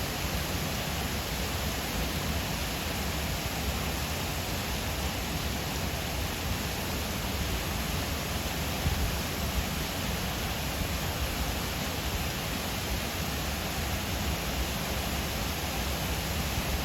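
Steady rushing noise with a low rumble, even throughout, and no calf calls.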